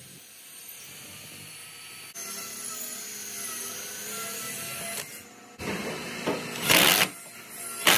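Cordless drill driving a long extension bit into the barrel end of a wooden bat to hollow it for loading. The motor runs quietly with a wavering pitch at first, then there are two loud bursts of drilling into the wood near the end.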